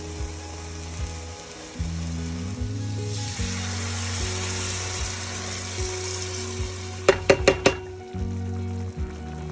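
Chicken of the woods mushroom frying in a pan, sizzling more strongly from about three seconds in, over background music with low sustained notes. Four quick sharp clicks come about seven seconds in.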